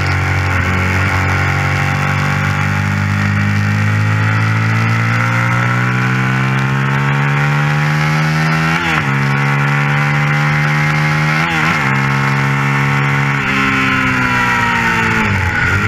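Suzuki SV 650's V-twin engine at high revs under race acceleration, heard on board: a long rising pull in one gear, then two quick upshifts about nine and twelve seconds in, each briefly dropping the pitch before it climbs again. Near the end the pitch steps down.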